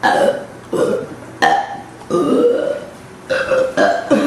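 A woman burping repeatedly: a quick run of about six belches, each starting abruptly and fading, roughly one every half second to a second, with the one about two seconds in drawn out longer.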